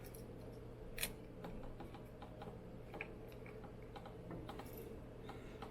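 Small flat-head screwdriver working a C-ring clip off a kitchen sink sprayer hose fitting: faint scattered clicks and scrapes, with one sharper click about a second in.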